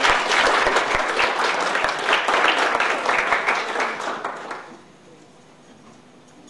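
Roomful of people applauding: many hands clapping together, dying away about four and a half seconds in.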